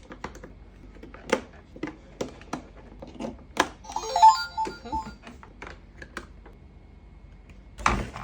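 Scattered clicks and taps of plastic parts being handled, with a short run of electronic beeps and chirps about four seconds in from the toy claw machine's sound chip. A louder rustle comes near the end.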